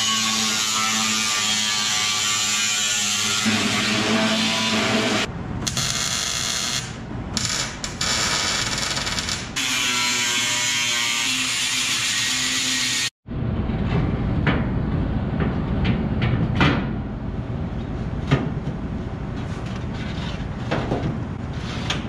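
Small angle grinder with a cut-off wheel cutting through the sheet-steel panels of an old toolbox: a high, steady whine with a few short breaks. About thirteen seconds in it cuts off suddenly, giving way to a lower, rougher noise with sharp metal clicks and knocks.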